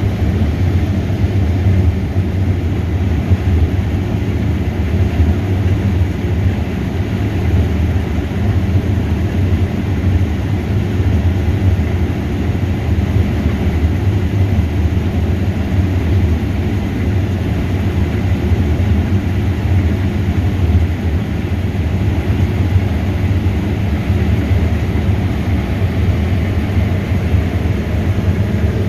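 Large diesel harvest machinery running steadily during corn harvest: a loud, constant low engine drone with a hum.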